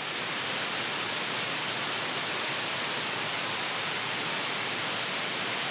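Steady radio static hiss from a shortwave receiver tuned to an empty frequency, with no tones or voice on it.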